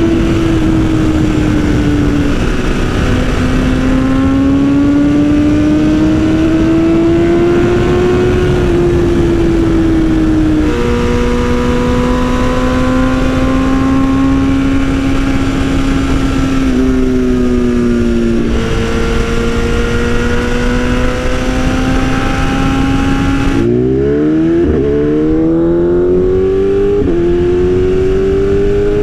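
2020 BMW S1000RR M Sport's inline-four engine through an Austin Racing exhaust, ridden on the road: the engine note rises and falls with the throttle and drops suddenly at gear changes, over wind rush. Near the end the wind noise falls away and the revs climb in several quick, steep rises one after another.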